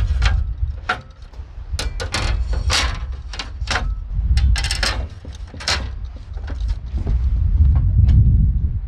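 A run of short, sharp knocks and rustles, bunched in the first six seconds, over a steady low rumble.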